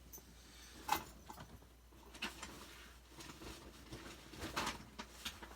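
Light clicks and taps of small tools and parts being handled on a work surface, with one sharp click about a second in and a few fainter clicks and short scrapes later.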